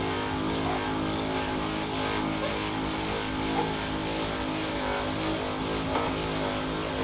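Handheld electric massager running steadily on the lower back: a constant motor hum that holds one pitch throughout.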